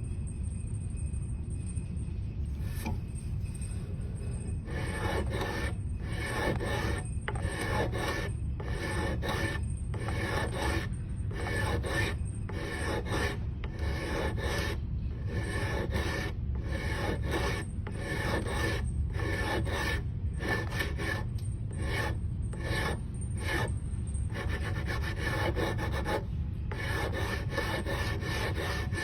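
Rhythmic abrasive strokes shaping a cello nut, a little over one stroke a second, starting about five seconds in.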